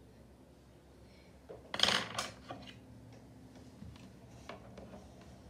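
Small objects being handled on a desk: one short clatter about two seconds in, then a few light ticks.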